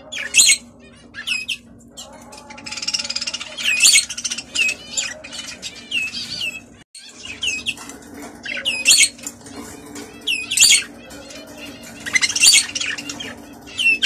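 Budgerigars chirping and squawking in short, sharp calls that come in clusters every second or two, with softer chatter between them.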